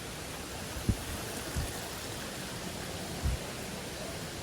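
Steady rush of water, an even hiss, with three soft low thumps spread through it.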